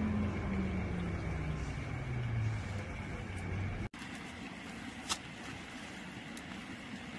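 A passing car's engine hums with its pitch falling steadily for about four seconds, then cuts off abruptly. After that comes a low steady hiss with a few sharp crackles from a wood fire burning in a small metal fire stand.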